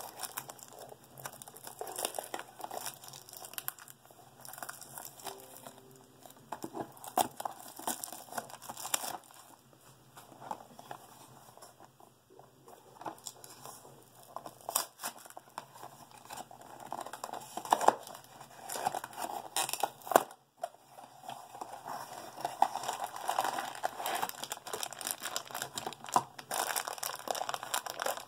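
Wrapping of a Funko Mystery Minis blind-box figure crinkling and tearing as it is handled and opened by hand, in a dense run of irregular crackles that grows busier and louder in the second half.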